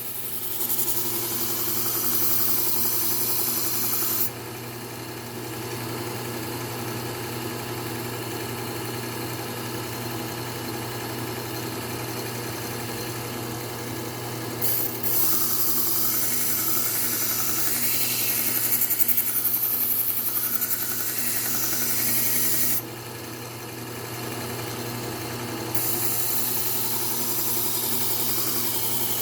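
Powered belt knife sharpener running with a steady motor hum while a blade is ground against the abrasive belt, giving a bright grinding hiss. The hiss drops away twice, for about ten seconds after the first four and again for a few seconds near the end, as the blade comes off the belt and leaves only the motor running.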